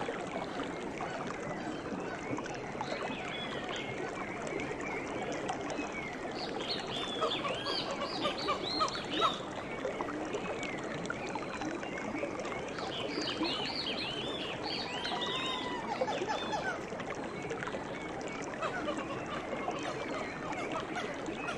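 Many birds calling at once in a steady chorus, with flurries of quick high chirps about seven and thirteen seconds in.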